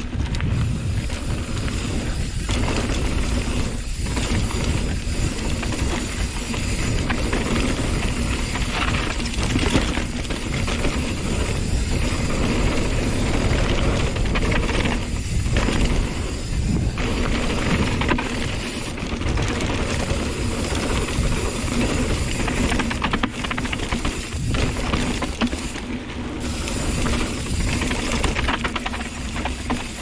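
Hardtail mountain bike ridden fast down a dirt and gravel trail: tyres rolling and crunching over loose ground and the bike rattling, with wind rushing over the camera microphone.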